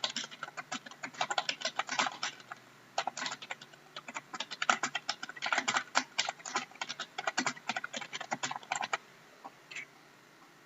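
Typing on a computer keyboard: fast runs of key clicks with a short pause about three seconds in. The typing stops near the end.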